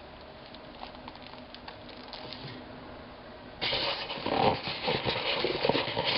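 Handling of plastic puzzles and their packaging: a few faint ticks, then about three and a half seconds in, a sudden spell of louder rustling and rapid clicking.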